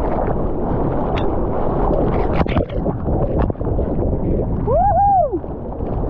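Sea water sloshing and splashing around a camera held at the water's surface while a bodyboarder paddles through choppy surf, with a few sharp splashes between about one and three and a half seconds in. Near the end a brief tone rises and falls.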